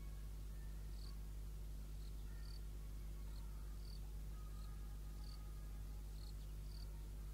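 Quiet outdoor ambience: a steady low hum, with an insect chirping in short high pips at an even pace, stronger and weaker pips alternating about every three-quarters of a second.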